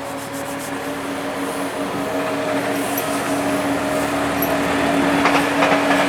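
A vehicle approaching, growing steadily louder, with a steady hum.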